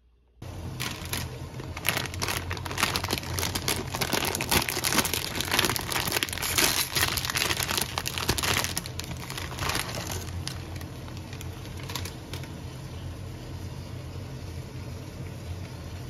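Plastic instant-noodle packet crinkling and rustling for about nine seconds as the noodle block is pulled out, over the steady rushing of a portable butane stove burner. The crinkling stops about ten seconds in, leaving the burner running under a mess tin of boiling water.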